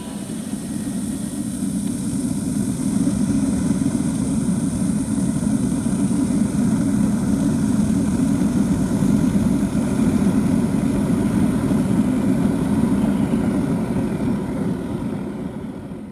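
SpaO2 swimming-pool aerator jetting aerated water into the pool: a steady low rushing roar that fades in over the first few seconds and fades out near the end.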